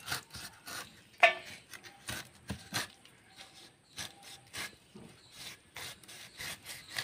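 Curved iron blade slicing the tough rind off a ripe pineapple: a run of short rasping cuts, several a second, with one louder click about a second in.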